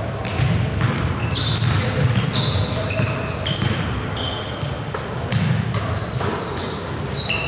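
Basketball shoes squeaking again and again on a hardwood gym floor as players cut and stop, with a basketball bouncing.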